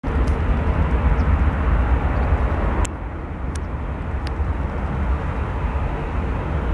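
Airbus A380-841's four Rolls-Royce Trent 970 turbofans at take-off thrust during the take-off roll: a steady jet rumble, heavy in the low end, dipping slightly about three seconds in. A few faint clicks are heard over it.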